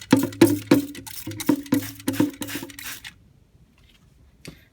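Hand-held trigger spray bottle misting water in rapid squirts, about four a second, stopping about three seconds in.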